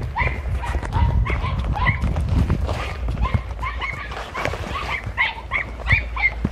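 Young podenco hounds giving tongue in the brush, a rapid overlapping string of short high-pitched yelps several times a second: the pack baying as it follows a scent trail. A low rumble of movement through the scrub runs underneath.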